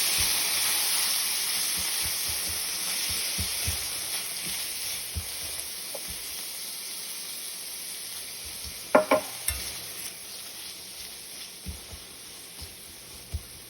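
Food sizzling in a frying pan while it is stirred, the sizzle slowly dying down. A few sharp clinks of a utensil on the pan come about nine seconds in.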